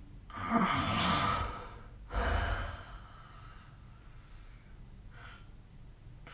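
A sleeping person snoring: a long rasping breath with a low rattle at its start, a second shorter breath about two seconds in, then a faint short breath about five seconds in.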